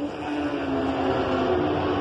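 Racing superbike engine held at high revs as the bike runs away down the straight after passing, a steady engine note whose pitch sags slightly over a rushing background.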